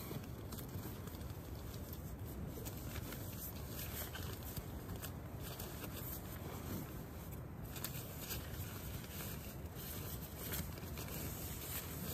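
Nylon rustling and crinkling as a down sleeping bag is stuffed into a nylon stuff sack by hand, with small scattered clicks and scrapes of fabric.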